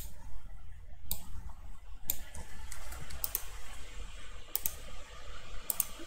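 Scattered computer mouse clicks, roughly one a second and some in quick pairs, over a low steady hum.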